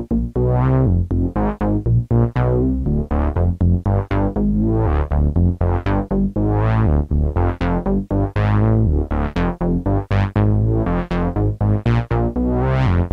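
Background electronic music with synthesizer notes and a quick, steady beat.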